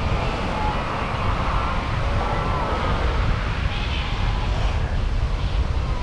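Wind buffeting the microphone over the wash of surf, with a few faint wavering calls about two to three seconds in.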